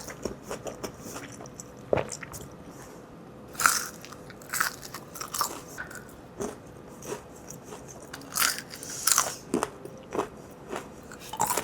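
Close-miked eating of a Shake Shack meal: irregular crunchy bites and chewing, with louder crunches about four seconds in and again around eight to nine seconds in.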